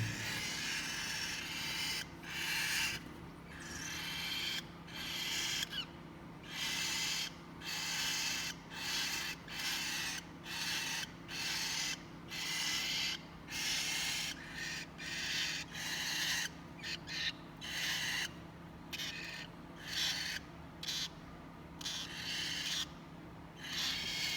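Cockatiel chicks giving raspy, hissing calls in short bursts, about one a second, over a steady low hum.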